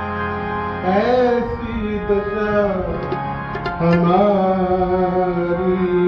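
Devotional singing: a voice slides up into two long held, wavering notes, about a second in and again near four seconds, over a steady instrumental drone and tabla.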